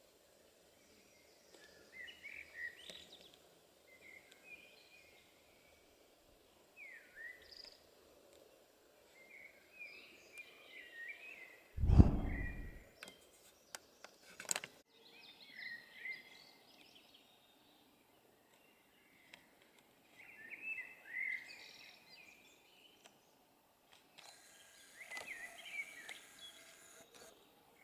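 Small birds chirping and twittering on and off over a faint outdoor hiss, with one brief loud low thump about halfway through.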